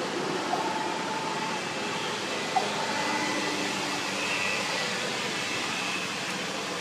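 Steady outdoor background hiss, with two faint ticks about half a second and two and a half seconds in.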